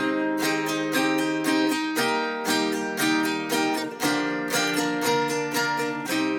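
Instrumental trap beat with a melody of quickly plucked guitar notes, several a second, and almost no deep bass.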